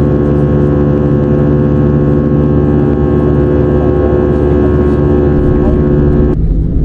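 Airliner cabin noise in flight: a steady drone made of several even tones over a low rumble. It cuts off abruptly near the end, leaving a lower, rougher rumble.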